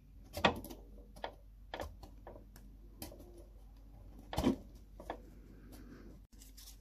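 Scattered small ticks and scrapes of a scalpel blade working on the hard plastic of a Ford Focus Mk2 dashboard storage lid, trimming where the broken catch was cut off, with two louder clicks, one about half a second in and one after about four seconds.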